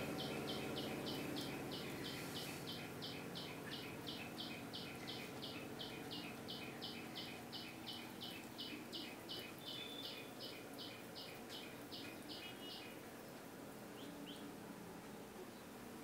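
A small bird chirping over and over in an even rhythm, about three high chirps a second, stopping shortly before the end, over faint steady room noise.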